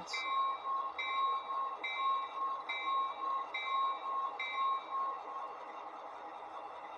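Sound decoder in an Athearn Genesis GP38-2 model diesel locomotive playing its recorded locomotive bell. It rings in an even rhythm, about once a second, through the model's small onboard speaker, and stops about five and a half seconds in.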